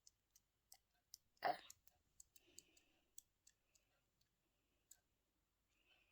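A wobbly tooth being wiggled in the mouth, making faint, irregular wet clicks, with one louder squashing smack about one and a half seconds in.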